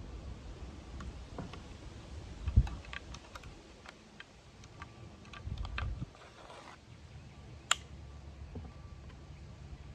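Small metal clicks and knocks as the parts of a Schmidt-Rubin 96/11 rifle are handled and fitted back together, with a louder knock about two and a half seconds in and a sharp click near eight seconds.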